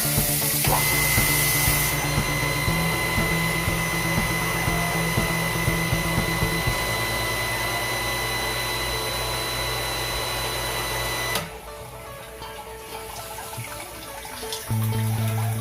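Background music with held notes, over a steady motor whine and hiss that cuts off suddenly about eleven seconds in.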